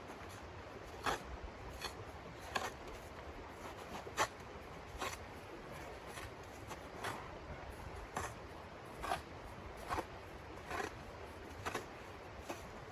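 Footsteps crunching in snow at a steady walking pace, about one step every 0.8 seconds, over a low steady hiss.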